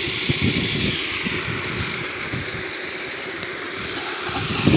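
Water jetting up from a leaking pipe in the ground and rushing away over the grass: a steady hiss with an uneven low rumble under it.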